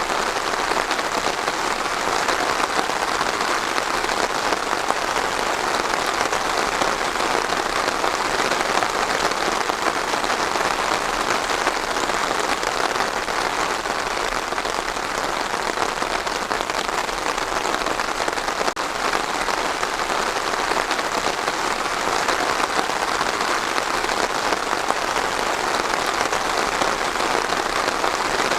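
Steady rain falling on a surface, an even hiss with no breaks or changes.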